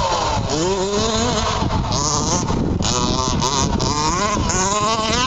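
Small two-stroke gas engines of 1/5-scale RC cars running on a dirt track. They rev up and back down again and again, with a buzzing, continually rising and falling pitch.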